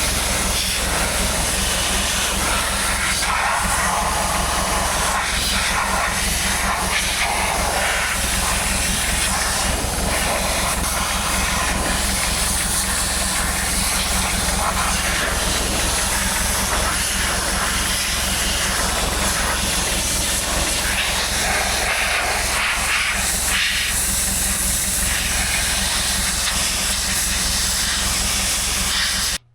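Steady, loud hissing noise with a low hum underneath, unchanging throughout and cutting off abruptly at the end.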